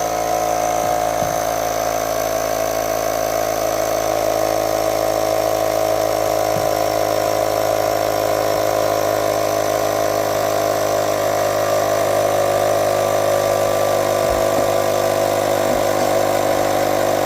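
Small cheap electric tire inflator running steadily, its little piston compressor humming at a constant pitch as it pumps a tubeless scooter tire up toward about 50 PSI.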